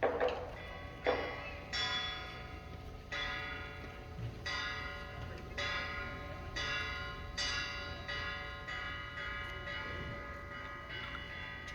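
Bell-like metal chimes struck again and again, roughly once a second at an uneven pace, each ring sustaining and overlapping the next; the strikes grow softer in the last few seconds.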